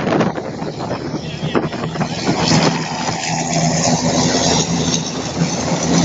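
Pack of racing trucks' diesel engines running as they roll past below in close formation, a steady low drone.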